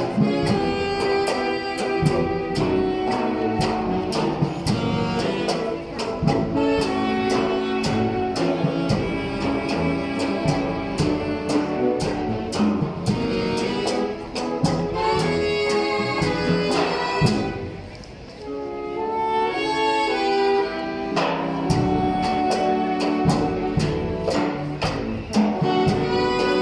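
Live wind band of brass and woodwinds playing a tune over a steady beat of about two strikes a second. Around two-thirds of the way through the music thins to a softer passage, then comes back in full.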